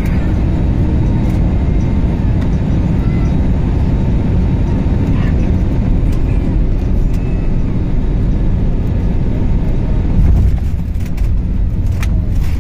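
Steady jet engine noise and air rush heard inside an airliner cabin during the final approach and landing. A short rise in level comes about ten seconds in, as the aircraft reaches the runway.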